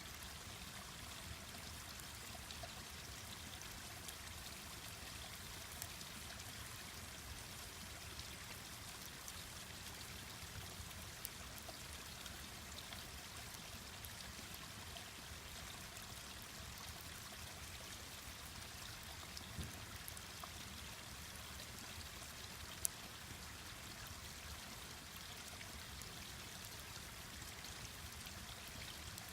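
Mountain stream rushing steadily, with a campfire giving an occasional sharp pop, the loudest about three-quarters of the way through.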